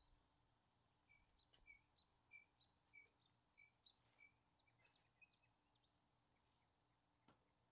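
Near silence with a faint bird chirping, a short call repeated about every half second for a few seconds, then a few scattered faint ticks.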